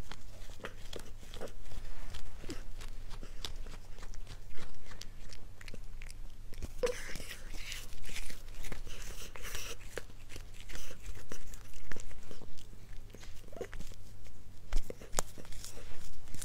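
Cat chewing a treat held in its front paws: a quick, irregular run of short chewing clicks.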